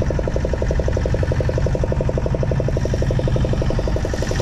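Small fishing boat's diesel engine running steadily, a fast even beat over a low rumble.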